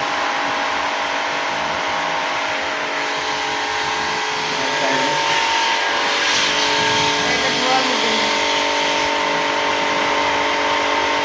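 Electric high-pressure washer's motor and pump running steadily: a whine made of several steady tones over a hiss.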